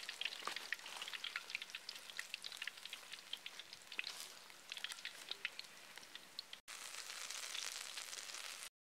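Banana bonda batter balls deep-frying in hot oil in an iron kadai: a crackling, spitting sizzle. After a short break about two-thirds through, it goes on as a steadier hiss.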